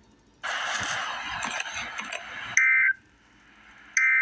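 A hiss of static for about two seconds, then two short, loud electronic data bursts about a second and a half apart: the Emergency Alert System's end-of-message code (NNNN), sent as two-tone digital audio.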